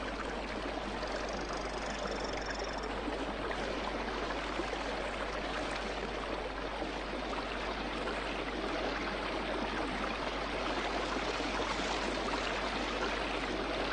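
Fast mountain stream water rushing steadily over boulders. About a second in, a faint high-pitched trill is heard briefly: the territorial call of a Brazilian torrent frog (Hylodes asper).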